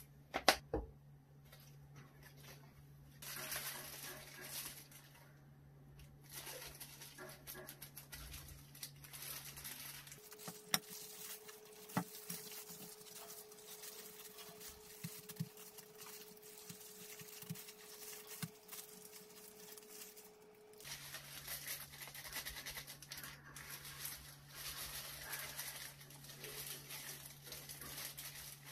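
Kitchen handling sounds: disposable plastic gloves crinkling and a sandwich being pressed and patted into breadcrumbs. Under it runs a steady low hum, replaced for about ten seconds in the middle by a higher steady tone. A few sharp clicks come at the start.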